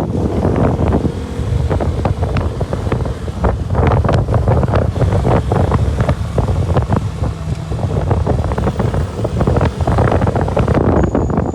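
Heavy wind buffeting the microphone while riding a KTM RC 200 motorcycle, over the deep rumble of its single-cylinder engine, with frequent short knocks through the ride.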